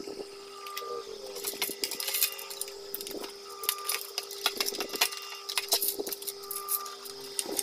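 Irregular plastic clicks, taps and light rattles from hands handling the opened food processor's plastic housing, wiring and small switch board, over a steady background hum.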